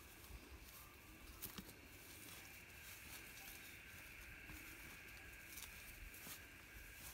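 Near silence: faint outdoor background with a steady high hiss, a low rumble and a few light clicks and patters.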